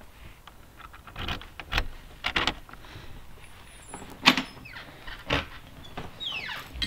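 A door being unlocked and opened with keys: several separate clicks and knocks, the loudest about four seconds in, then a short squeak falling in pitch near the end.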